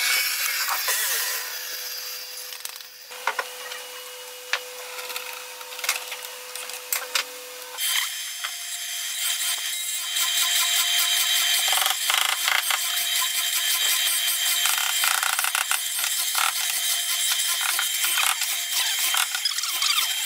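Mortising machine running, its bit cutting a long slot in a wooden board. The motor hums steadily at first with scattered clicks; about eight seconds in the cutting grows louder and denser, with rapid ticking of chips.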